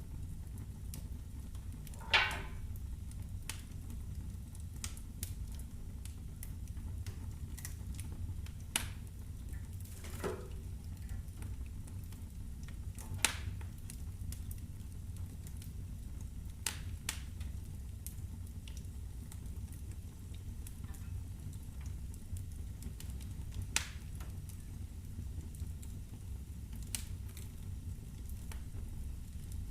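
Wood fire burning in a fireplace: a steady low rumble with scattered sharp crackles and pops of burning firewood. The loudest pop comes about two seconds in, with fewer, smaller ones after it.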